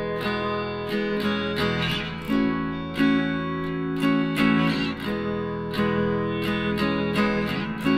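Background music of strummed acoustic guitar chords, played at a steady, unhurried pace.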